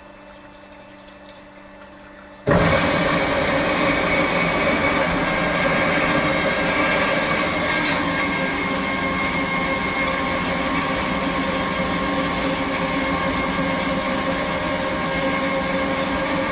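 Kasto HBA 420 AU automatic horizontal band saw: a quiet steady machine hum, then about two and a half seconds in the saw starts abruptly and runs loud and steady, a dense noise with several held tones.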